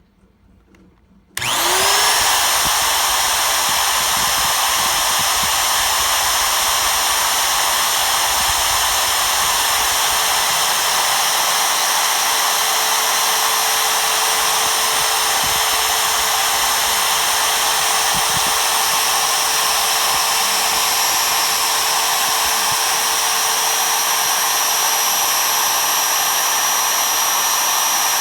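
An MPCNC machine's milling spindle motor starts about a second and a half in, quickly spins up with a rising whine, then runs steadily at high speed for a foam milling test.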